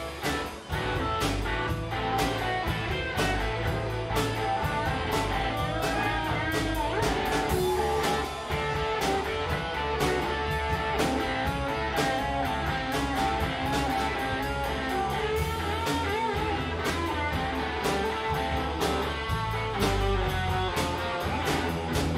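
Live rock band playing an instrumental passage with no singing: electric guitar lines over bass and a steady drum beat.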